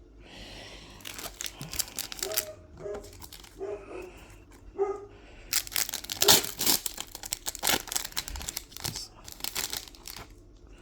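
Foil wrapper of a Pokémon card booster pack crinkling and tearing open, with bursts of rustling and flicking as the cards are handled, busiest about six seconds in.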